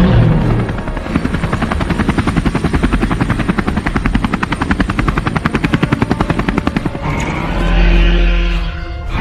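Helicopter rotor sound effect: a fast, even chopping of the blades that fades out after about seven seconds, followed by a deep rumble.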